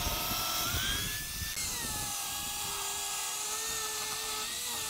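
Portable table saw running and ripping a length of 1x6 primed finger-jointed pine: a steady motor whine, its pitch rising about a second and a half in.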